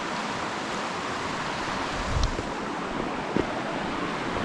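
A creek rushing over rocks in white water, a steady hiss. A low thump sounds about two seconds in and a short click a little later.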